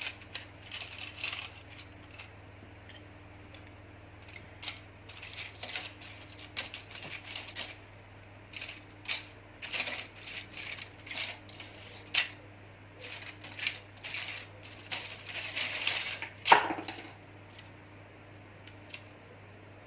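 Small hard parts rattling and clicking as a pile of spare phone components is rummaged through, in irregular clusters with one sharper knock about 16 seconds in. A faint steady hum runs underneath.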